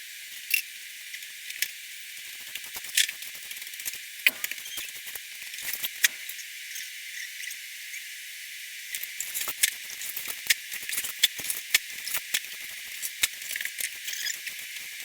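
Broken mirror glass being cleaned up: small shards clink and tick irregularly over a faint hiss, more thickly in the second half.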